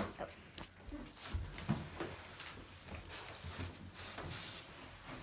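Cardboard scraping and rustling, with a few dull knocks, as an IKEA Vimle sofa chaise section is lifted up and out of its cardboard box.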